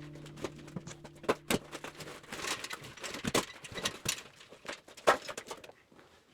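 Irregular knocks and clattering of broken wall debris being handled during interior demolition, with a few sharper hits; the sounds thin out near the end. Background music fades out in the first two seconds.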